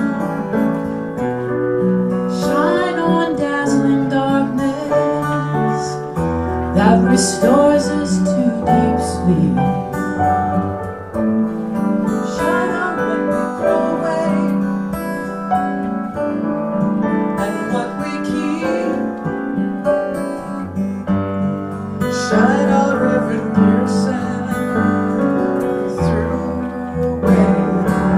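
Amateur singers taking turns to sing a song line by line into a microphone, a different woman's voice taking over partway through, over live keyboard and guitar accompaniment with held chords and a moving bass.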